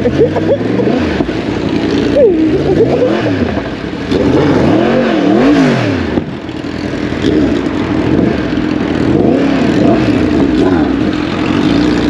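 Yamaha MT-10's crossplane inline-four engine under way, the revs rising and falling several times, then running more steadily.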